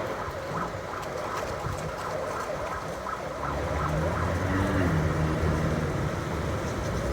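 Autumn wind blowing steadily. About halfway through, the low hum of a passing motor vehicle's engine rises over it and lasts to near the end.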